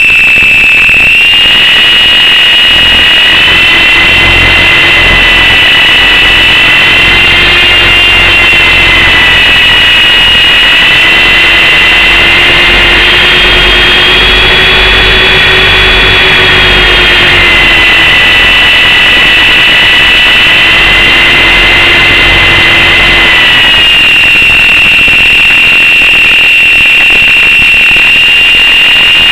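Whine of a Lama coaxial RC helicopter's electric motors and rotors, picked up by its onboard camera microphone and sent over a wireless audio link, with wind noise throughout. The whine rises a little in pitch around the middle and settles back down about three-quarters of the way through.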